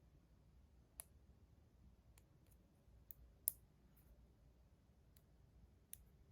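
Faint, sparse clicks and taps from small hard parts being handled, about eight in all, the sharpest about halfway through, over near silence.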